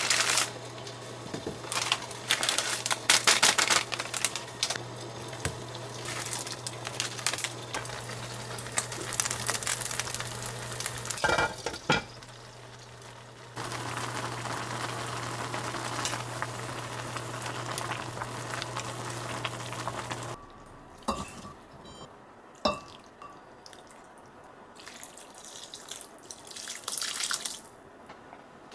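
Instant ramyeon cooking on an induction cooktop: a plastic noodle packet crinkling and tearing open, then noodles bubbling at the boil in a saucepan over the cooktop's steady hum, which cuts off about 20 seconds in. A few utensil clinks follow, and the noodles are poured from the pan into bowls near the end.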